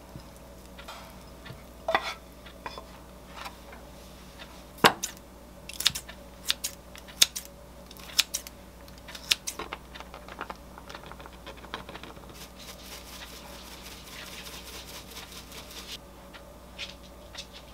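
A wooden spatula scrapes and knocks egg fried rice from a square frying pan into a ceramic pot, then kitchen scissors snip through a chicken breast. The result is a scattered string of sharp clicks and knocks.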